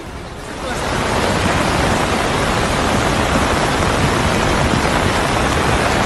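Muddy floodwater rushing in a steady, loud wash of noise that swells up within the first second and then holds.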